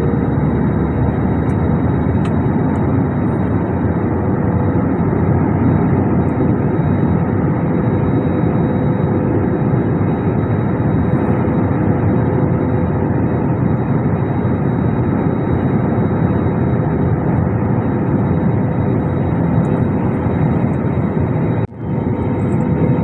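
Jet airliner noise heard from inside the cabin: a steady rush of engine and airflow noise with a faint constant whine. Near the end it drops out for an instant.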